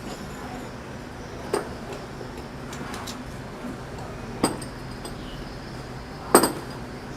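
Metal parts clinking and knocking as they are handled and set down: three separate sharp clinks, the last the loudest with a quick second tap right after it.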